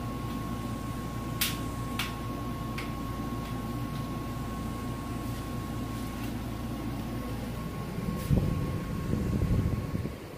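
Steady low background hum with a thin high whine, broken by a few light clicks. Near the end comes louder knocking and rustling as a rubber grommet is worked into the pressure washer's red plastic nozzle-holder panel.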